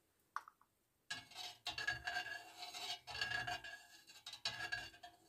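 Metal spoon stirring milk in a stainless steel pan, scraping along the pan in three long strokes that each carry a ringing metallic tone, after a light tap about half a second in. The spoon is mixing freshly added rennet into the milk.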